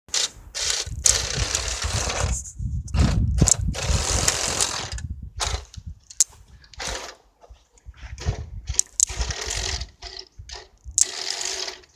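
Lego Technic RC tracked racer's electric motors and plastic tracks running in stop-start bursts, each lasting from a fraction of a second to about two seconds, with a mechanical rattle.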